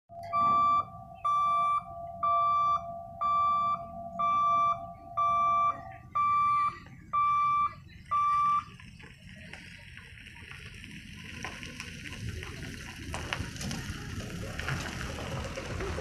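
Level-crossing warning buzzer beeping about once a second, nine beeps over a steady lower tone that stops about six seconds in, while the boom barriers are raised. The beeping stops after about eight seconds, and outdoor road noise then grows as traffic starts to cross.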